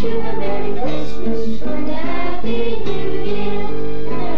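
Choir singing a Christmas carol over instrumental backing music.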